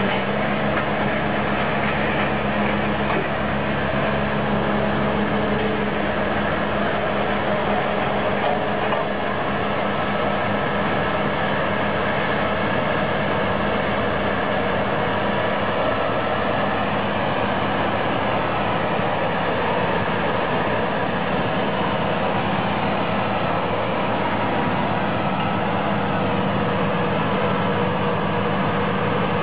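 Machinery running steadily: a constant, unchanging hum with several steady tones over a mechanical noise.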